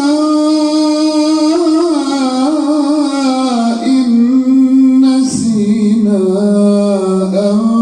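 One voice chanting Quranic verses in slow, melodic tajweed recitation, with wavering ornamented notes that slide down to a long held lower note in the second half.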